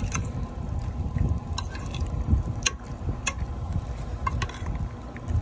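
A metal spoon stirring diced raw tuna poke in a glass dish: wet squishing as the chunks are turned in the sauce, with sharp clinks of the spoon against the glass at irregular moments.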